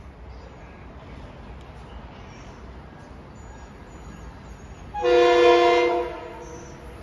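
Train horn sounded once, a single chord lasting about a second, loud over the faint hum of the station.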